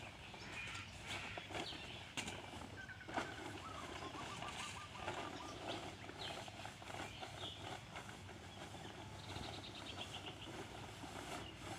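Birds calling in the background: short scattered chirps and a rapid trill about nine seconds in. A plastic tarp rustles briefly now and then as it is rubbed over a horse.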